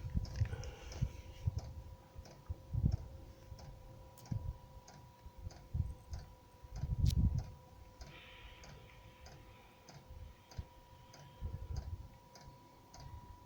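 Diesel heater's fuel dosing pump ticking at about two clicks a second, over the steady whine of its blower fan, with low thumps and rumble from handling or wind. The heater is pumping fuel but failing to ignite, so it blows white smoke.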